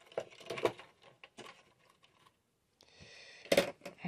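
Scattered light clicks and knocks, then a short hiss about three seconds in, followed by a sharp click.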